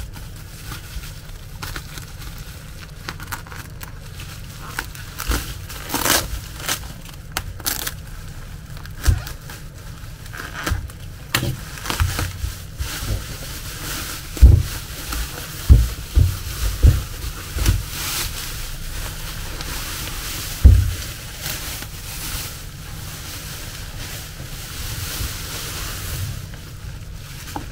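Plastic bags and bubble wrap rustling and crinkling as a taped parcel is cut open with a utility knife and unwrapped, with several dull thumps of the package against the table in the second half.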